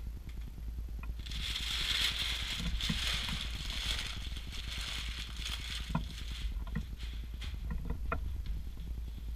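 Rustling and crinkling of a plastic packaging sheet being pulled off a boxed monitor, then a few light knocks and taps of hands handling the cardboard box, over a steady low hum.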